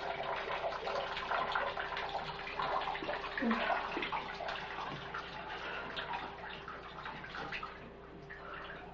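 Shower running: water spraying and splattering in a small shower stall, growing quieter near the end.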